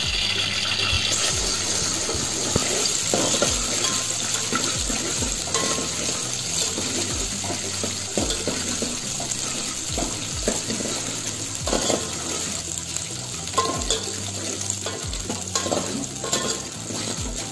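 Cashews and sliced almonds sizzling in a stainless steel pot while a steel spoon stirs them, scraping the bottom and knocking against the pot about once a second.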